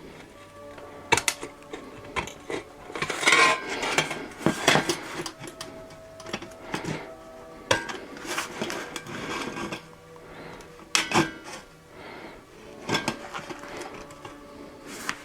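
Tin snips cutting thin stainless steel sheet: irregular sharp snips and rasping metal, with a few louder bursts of cutting.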